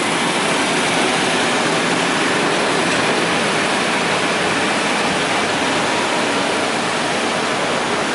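Several air scrubbers (HEPA air-filtration blowers) running at once with a loud, steady rushing noise, left on for final air testing after demolition.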